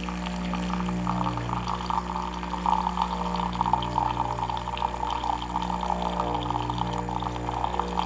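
Saeco Royal OTC super-automatic espresso machine dispensing hot water from its hot water spout into a glass mug: a thin stream splashing and trickling into the cup over the steady hum of the machine's pump.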